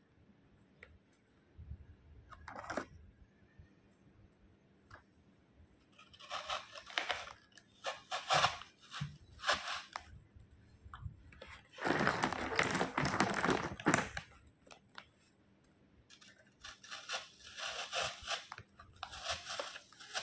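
Beaded wire flower stems handled and pushed into a plastic pot: irregular bursts of rustling, scraping and clicking handling noise, the longest and loudest about twelve seconds in.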